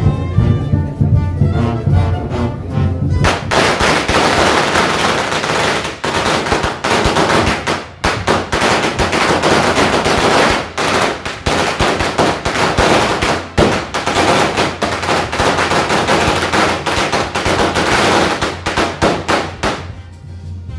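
Brass band music at first, then about three seconds in a five-metre string of firecrackers (an "ametralladora") goes off in a long, rapid, continuous crackle lasting about seventeen seconds, stopping near the end as the band is heard again.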